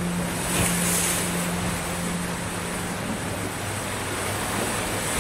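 Sea surf washing onto a beach: a steady hiss of breaking waves that swells about a second in, with a faint low steady hum beneath it for the first half.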